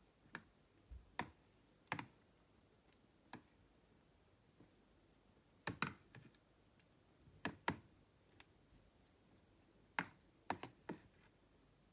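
Faint, scattered clicks and light taps, sometimes two or three in quick succession, as utensils and a microwave-safe dish are handled while the fish fillets are turned over.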